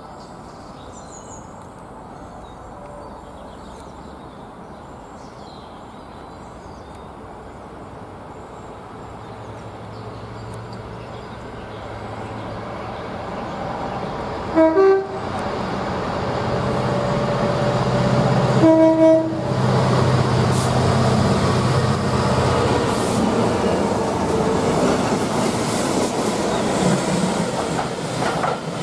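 GB Railfreight Class 66 diesel locomotives hauling an engineering train: the EMD two-stroke diesel engines grow steadily louder as the train approaches and passes, with wheels clattering over the rails. Two short blasts of the locomotive's horn sound about four seconds apart, midway through.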